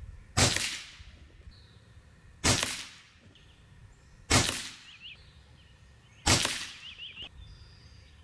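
Four shots from a .22 Reximex Throne Gen 2 Compact bullpup PCP air rifle, about two seconds apart. Each is a sharp report that fades within about half a second.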